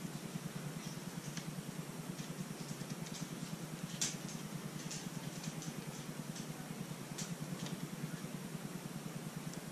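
A steady low mechanical hum with a fast flutter, with scattered light clicks and taps as the poured canvas is handled and tilted, and one sharper tap about four seconds in.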